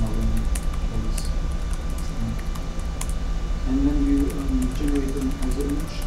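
Office ambience: computer keyboard typing and scattered clicks over a steady background hum, with a person's voice talking from about four seconds in.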